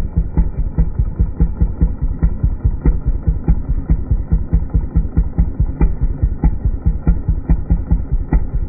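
Small engine idling with an even, pulsing beat of about three pulses a second.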